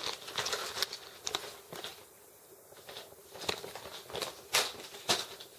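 Handling of plastic bait packages and tackle box trays: crinkling plastic with a string of sharp clicks and taps, the loudest about three and a half, four and a half and five seconds in.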